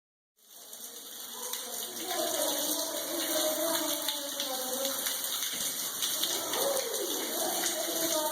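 Rushing floodwater: a steady rush that fades in about half a second in, with faint voices over it.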